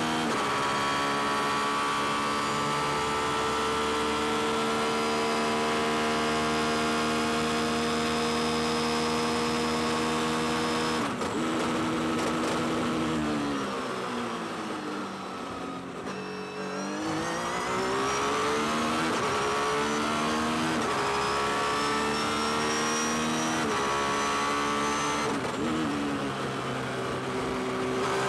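Honda NSX GT500 race car's V6 engine at full throttle, heard from inside the cockpit, its pitch slowly climbing at high revs. About eleven seconds in it falls in a series of steps as the car brakes hard and downshifts, then climbs again through several quick upshifts as it accelerates away.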